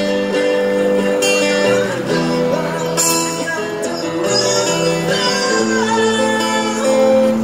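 A man sings a slow Malay ballad into a microphone, backed by a strummed acoustic guitar, all amplified through a street PA speaker.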